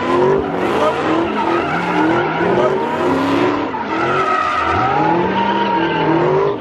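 A car drifting, its engine revving up and down over and over, about once a second, while its tyres screech steadily on the pavement.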